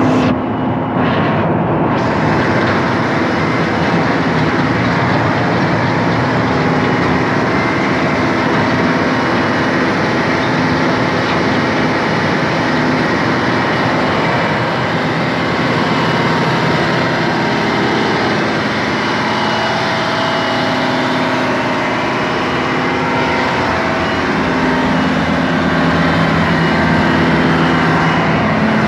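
Salem 1600 coal auger drill running, its engine and auger drive making a loud, steady drone.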